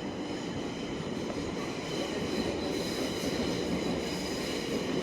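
A train running past, with a low rumble and several steady high-pitched squealing tones over it.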